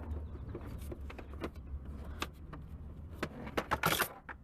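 Scattered clicks and knocks of car dashboard trim and hardware being worked loose by hand, with a short scraping rustle about four seconds in, over a low steady rumble.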